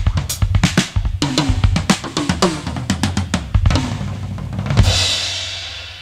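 Rock drum kit playing a busy fill of rapid hits on bass drum, snare and toms, ending on a cymbal crash about five seconds in that rings and fades away: the final hit of the song.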